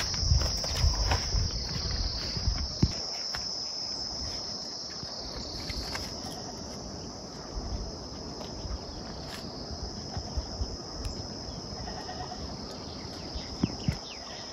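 Insects chirring in a steady high-pitched drone, with footsteps on a dirt path thumping through the first three seconds.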